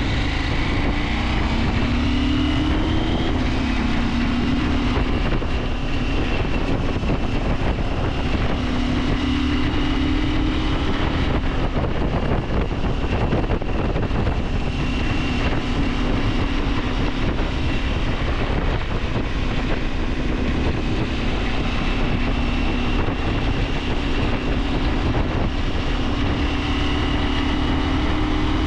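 KTM 890 Adventure's parallel-twin engine running while riding, its note rising and settling several times, with wind noise on the microphone.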